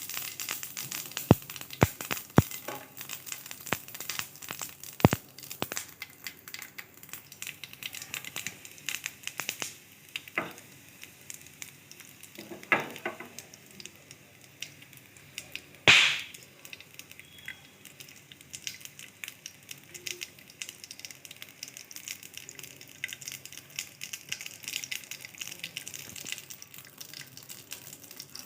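Egg omelette frying on a hot pan, with a steady crackling sizzle. Sharp utensil knocks come in the first few seconds, and a short loud hiss about sixteen seconds in.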